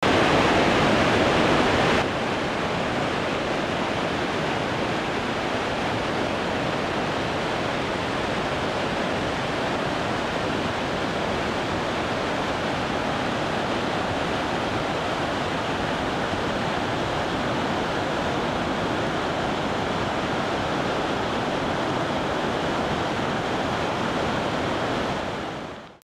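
Steady rushing of a waterfall, white water pouring down over rocks. It is a little louder for the first two seconds, then drops to an even level and fades out near the end.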